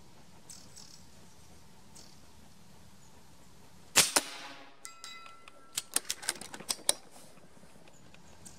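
A Reximex Throne PCP air rifle fires one .22 (5.5 mm) pellet about four seconds in: a loud, sharp crack with a short trailing echo. About two seconds later comes a quick run of sharp clicks.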